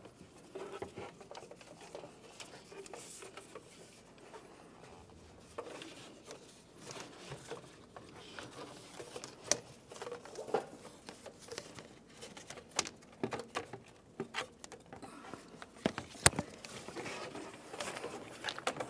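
Faint, scattered light clicks, taps and rubbing as a serpentine belt is worked off its pulleys by hand in an engine bay, with one sharper click near the end.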